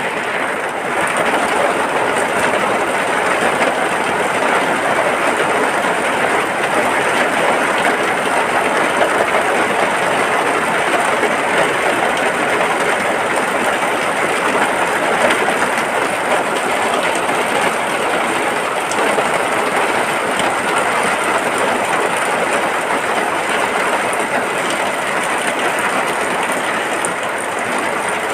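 Rain falling steadily, an even dense hiss with no letup.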